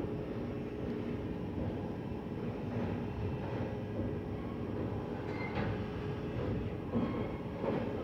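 Passenger express train (the Mangala Lakshadweep Express) running along the track: a steady rumble with a few sharp knocks from the wheels, about three in all.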